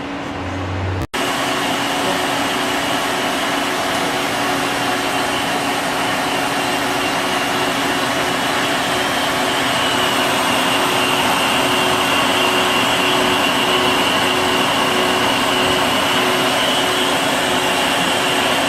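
Steady, fan-like whir of a powered-up Citizen M32 CNC Swiss lathe's running auxiliary equipment, with a faint high whine and a low hum. A brief dropout about a second in, after which the whir is slightly louder.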